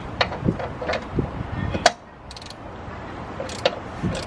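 Irregular sharp clicks and knocks of a socket wrench and extension being worked on a bolt in the engine bay, with one louder metallic click about two seconds in.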